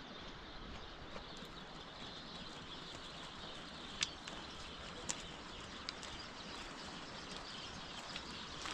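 Steady rushing outdoor noise, with three sharp clicks about four, five and six seconds in.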